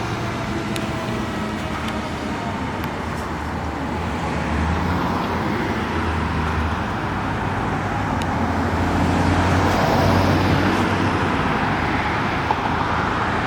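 Road traffic noise: vehicle engines and tyres passing, growing louder about halfway through and peaking around ten seconds in. A siren's falling tone dies away at the very start.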